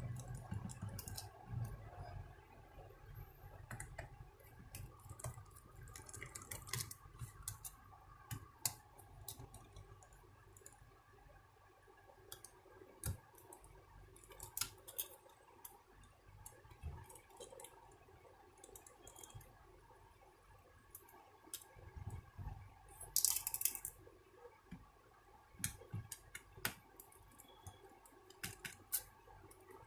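Scattered small clicks and ticks of a screwdriver working the tiny screws out of an Acer netbook's chassis, with the plastic and screws being handled. A brief louder scrape about 23 seconds in.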